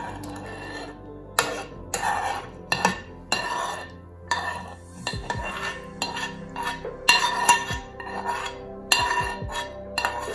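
Metal spoon scraping and knocking against a non-stick frying pan as fried pork ribs, onion and carrot are pushed off into a clay pot: about a dozen scrapes and clinks, roughly one a second, with the pan ringing briefly after each.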